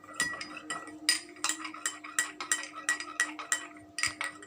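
A spoon stirring lime juice and sweet soy sauce in a drinking glass, clinking against the glass three or four times a second, each clink ringing briefly.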